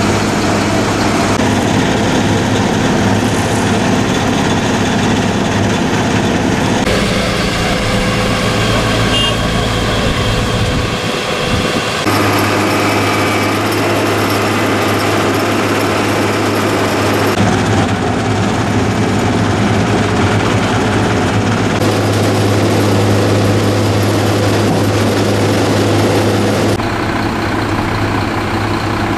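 Diesel engines of a Dynapac asphalt paver and the dump truck feeding it running steadily with a strong low hum while hot asphalt is laid. The engine sound changes abruptly about five times, roughly every five seconds.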